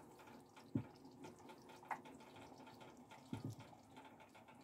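Quiet kitchen room tone broken by three soft, low thumps, one about a second in and two close together past the three-second mark, with a faint click in between.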